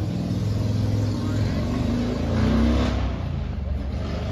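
Car engine running, its revs rising briefly and easing off about halfway through.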